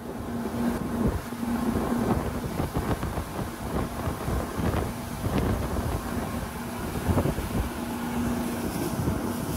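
Twin Mercury 300 outboard engines running at speed with a steady hum, under the rush of the boat's wake and wind buffeting the microphone.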